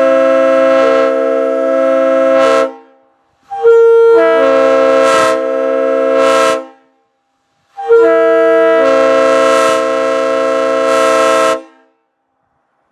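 Multi-chime locomotive air horn blown in three long blasts of about three seconds each, several notes sounding together as a chord. The first blast is already sounding at the start and each one cuts off cleanly.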